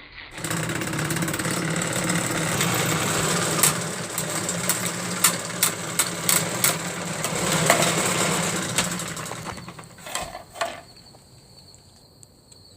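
Old Panasonic table fan running with a steady motor hum and rattle, and a run of sharp clicks or knocks midway. It then winds down and fades near the end.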